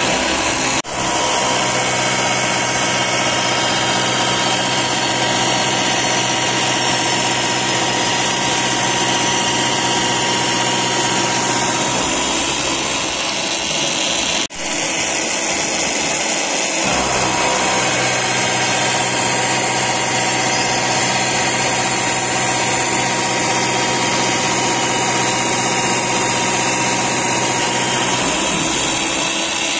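Huron NU3 milling machine face-milling S355 steel with a 40 mm face mill fitted with TNGX16 inserts: a steady, loud cutting noise over the spindle drive's hum. It breaks off for an instant about a second in and again around the middle.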